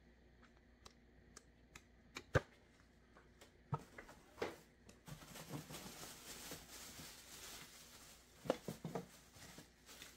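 Quiet unboxing handling noises: a few scattered clicks and taps as the paper booklet and cardboard box are handled, then a few seconds of plastic-bag crinkling in the middle as a bagged part is lifted out of the box, with a couple more clicks near the end.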